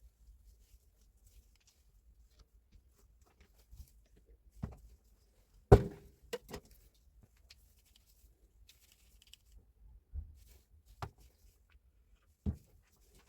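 Scattered sharp knocks and clicks of tool parts being handled during a rebuild of a Hilti TE76 rotary hammer, the loudest about six seconds in, over a faint low hum.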